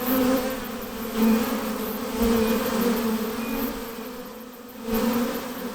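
Many honey bees buzzing near their hive, a dense steady hum that swells and fades, dropping off briefly about four seconds in before swelling again.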